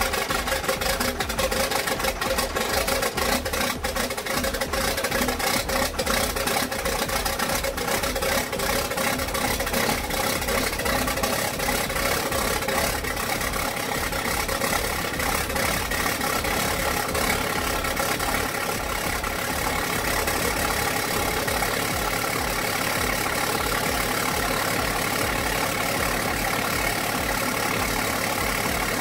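The LMTV truck's Caterpillar 3116 six-cylinder turbo-diesel idling steadily, with a continuous diesel clatter.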